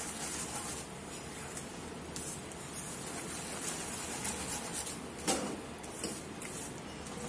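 Silicone spatula stirring and scraping thick caramel around a nonstick pan on the stove, under a steady low hiss, with small clicks. A single sharp knock comes a little past five seconds in.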